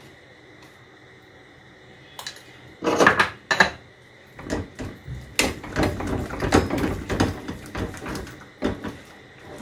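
A metal slotted turner scraping and stirring thick tomato-cheese sauce in a pan, as repeated irregular scrapes and knocks. It is preceded by a few loud clattering knocks about three seconds in.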